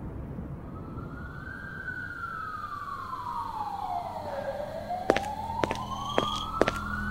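A siren wailing in slow rises and falls over a low rumble. About five seconds in, sharp ticks about twice a second and a low drone come in.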